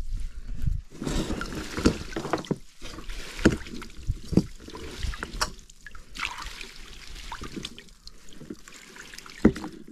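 Water splashing and dripping as a wet fishing net with its rope and floats is hauled in by hand through shallow water: an uneven wash broken by irregular sharp splashes, a few louder than the rest.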